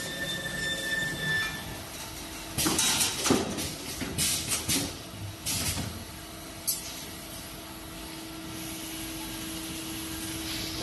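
Automatic wire ring forming and welding machine running: a steady machine hum with a short tone in the first second or so, then three noisy bursts of mechanical clatter and hiss about two to six seconds in, and a sharp click just after.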